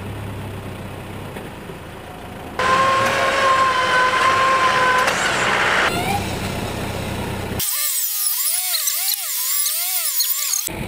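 Electric winch on a Land Rover Defender whining as it hauls in a steel cable chained to a large boulder. The whine starts suddenly about two and a half seconds in, over an engine idling, and its pitch wavers up and down under the changing load near the end.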